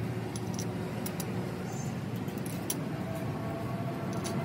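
A steady engine-like hum with scattered sharp clicks and taps.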